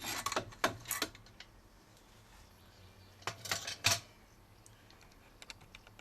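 Light metallic clinking and rattling in two short bursts, one at the start and one about three and a half seconds in: metal tools or parts being handled.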